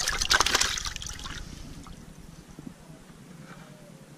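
Water splashing and sloshing in a plastic bucket as a hand grabs a live tilapia. The splashing is loud at first and dies down about a second and a half in.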